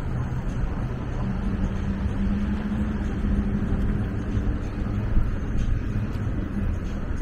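Steady low rumble of road traffic, with a low engine hum underneath.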